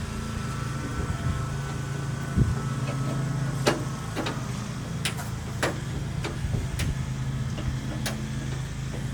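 Sharp metallic clicks and scrapes, about seven spread through the second half, as a spring-steel retaining clip is worked onto a truck door lock cylinder by hand. A steady low hum runs underneath.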